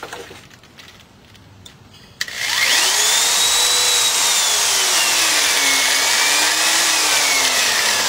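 Corded electric drill starting with a click about two seconds in and cutting into the thin aluminium of a drink can, a loud steady noise with a motor whine that rises quickly, wavers as the bit bites and slowly falls near the end.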